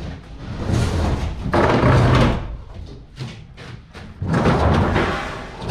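Thumps, knocks and scraping as a heavy discarded appliance is handled and loaded onto a truck, in two longer stretches with scattered knocks between.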